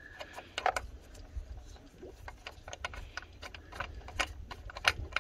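Irregular small clicks and ticks of a plastic knob on a Thule Hull-a-Port Aero kayak rack being screwed by hand onto its threaded mounting bolt, with the hard plastic rack body clicking under the fingers.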